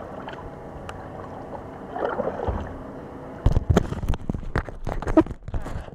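Kayak paddling: a steady wash of water with paddle strokes, then a run of loud knocks and splashes in the second half, likely the paddle and the handheld camera bumping against the kayak.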